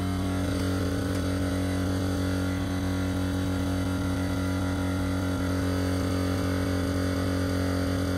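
Electric air compressor running steadily, pumping up a tyre, with an even motor hum.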